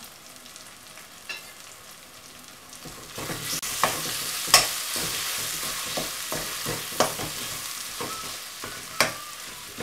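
Onion and tomato masala sizzling in oil in a kadai while a spoon stirs it. The stirring gets louder about three seconds in, with the spoon scraping and clicking against the pan several times.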